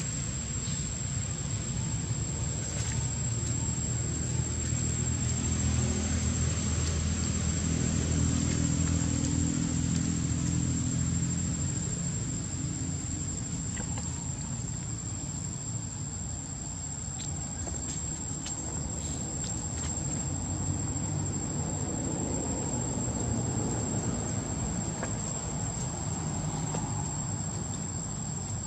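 Insects keep up a steady, high-pitched drone. A low rumble underneath is strongest in the first half.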